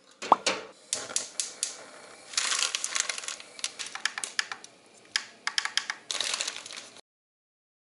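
A ringing metal clank from a thin aluminium pot, then a run of quick clicks, rattles and plastic crinkling as dry soba noodles are pulled from their package and measured into a ceramic bowl. It stops abruptly near the end.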